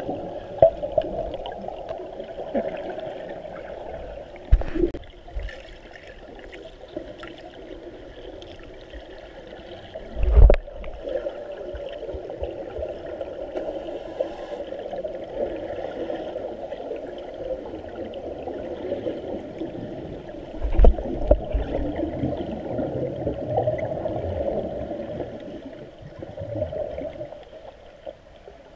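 Muffled water gurgling and sloshing, with three dull low thumps; the loudest falls about a third of the way in.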